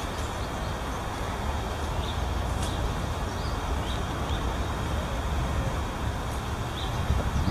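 Steady rumble of city traffic, with a few short bird chirps over it.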